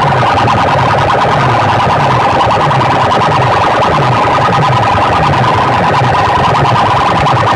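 Very loud, heavily distorted music blasted through a big competition sound system, with a steady siren-like tone and a low bass figure that falls and repeats about twice a second.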